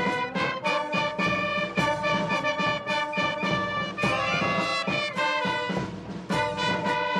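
Brass band music: trumpets and trombones playing sustained chords over a steady beat.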